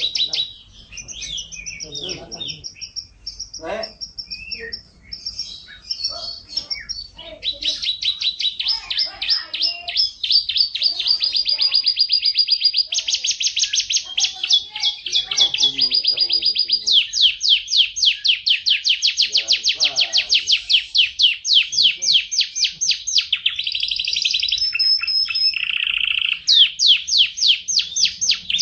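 Domestic canary singing a long, continuous song of rapid high-pitched trills, each a quick run of repeated notes held for a second or two before switching to a new one.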